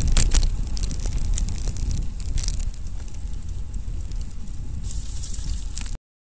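Wind rumbling on an action camera's microphone and road noise from a road bike ridden at about 25 km/h, with scattered crackles and clicks. It cuts off suddenly near the end.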